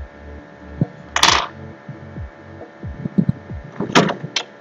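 Steady electrical mains hum, with scattered soft low thumps, a short loud rustling noise about a second in, and two sharp clicks near the end.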